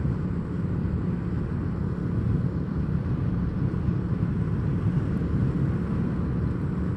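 Steady engine and road noise from a vehicle travelling along a village road: a low, even drone with a noisy hiss above it.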